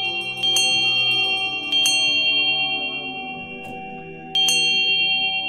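Altar bell rung at the elevation of the Host, the signal for adoration after the consecration: three bright strikes, the last after a longer pause, each ringing on and slowly fading.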